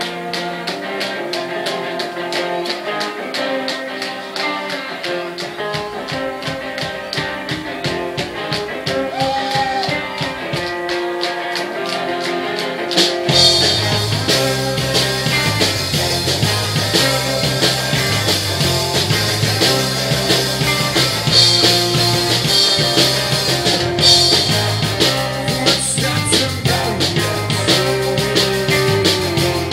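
Live rock band playing: electric guitars over a steady drum beat. About halfway through, the bass and the full band come in and the music gets louder.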